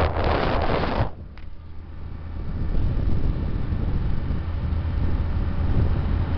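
Wind buffeting the microphone on a moving motorcycle, cut off abruptly about a second in. After that the motorcycle's engine and road noise run on as a steady low drone that slowly grows louder.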